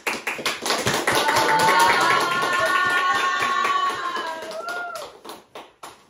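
A small audience applauding in a classroom, with a long high cheer from a voice over the clapping in the middle. The applause dies away near the end.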